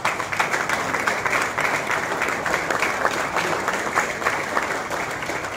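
Audience applauding in a hall: dense clapping that starts suddenly, carries on steadily and eases slightly near the end.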